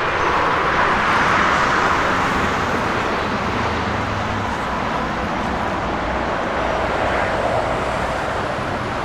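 Steady roar of passing road traffic, swelling about a second in and slowly easing off.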